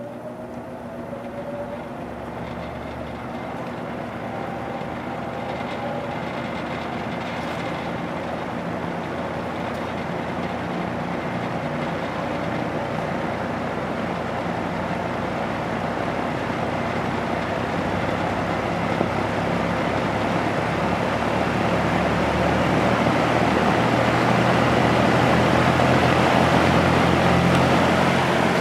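Air King V20E box fan with its GE two-speed reversible motor starting on low and spinning up slowly: the motor hum and the rush of air off the blades grow steadily louder the whole time. It is slow to reach running speed on low, which the owner says is just how this one is.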